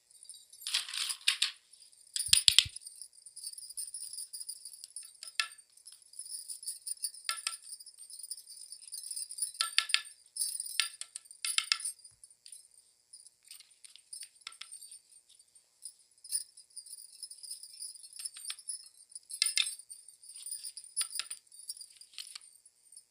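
Slime being squished and worked by hand, making irregular sticky clicks and crackling pops in uneven clusters.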